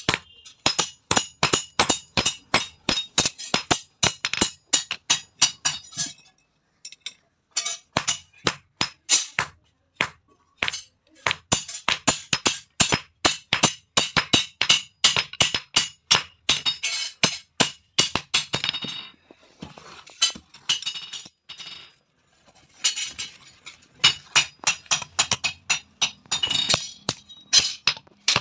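Hand hammer striking red-hot steel on a steel anvil block, about three or four blows a second, each with a high metallic ring. The blows come in runs broken by a few short pauses while the hot rod is hand-forged into a spear.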